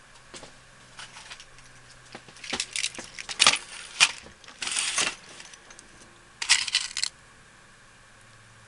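Small metal clicks and rattles of a lock rekeying kit being handled, as tiny lock pins are sorted and picked out. There is a cluster of clicks through the middle and a short rattle near the end.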